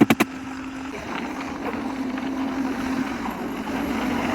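An engine running steadily with a continuous hum. A few quick, evenly spaced pulses right at the start give way to the smooth running.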